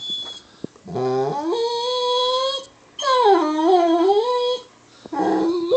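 Excited Weimaraner howling in three drawn-out calls. The first rises in pitch and then holds, the second wavers up and down, and a shorter one comes near the end.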